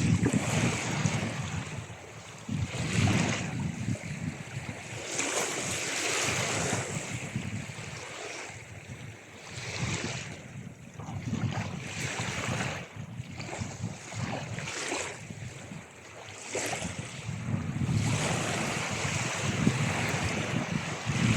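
Ocean waves breaking and washing on a shore, swelling and ebbing every few seconds.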